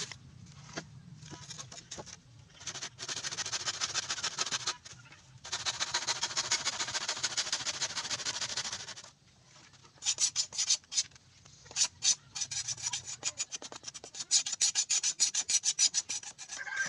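Hand saw cutting through a bamboo pole in fast, rasping back-and-forth strokes, stopping about nine seconds in. After a short pause come a run of sharp knocks and taps on the bamboo.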